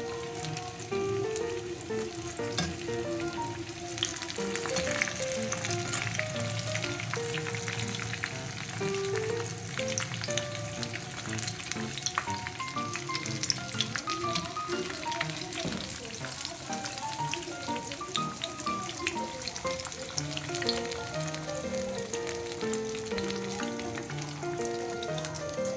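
Bread-crumbed chicken drumsticks frying in bubbling hot oil in a pan: a steady, dense sizzle with many small pops and crackles. Soft background music with a simple melody plays underneath.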